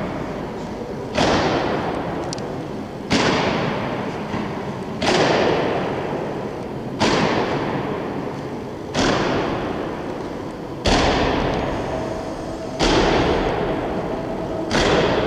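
Honour guard marching in slow ceremonial step, their boots stamping in unison on a stone floor about once every two seconds, eight times. Each stamp echoes and dies away in a large hall.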